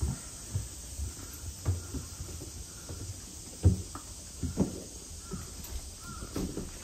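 Footsteps of people walking on wooden floorboards: soft, uneven thuds, the loudest about three and a half seconds in. Faint calls near the end.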